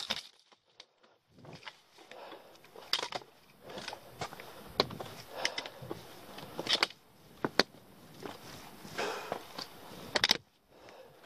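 A hiker walking on rocky ground: uneven footsteps and sharp, irregular taps of a trekking pole on stone, with wet brush rustling past.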